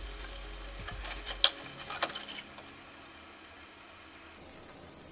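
Seeraga chicken sizzling in its separated oil in the pan, a sign the gravy has fully reduced. A few sharp clicks of stirring against the pan come between about one and two and a half seconds in, the loudest near the middle, and after that the sizzle goes on more quietly.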